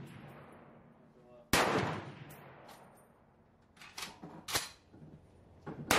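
Krag–Jørgensen bolt-action rifle firing twice, about one and a half seconds in and again right at the end, each shot trailing off in an echo. Between the shots come a few sharp metallic clacks of the bolt being worked.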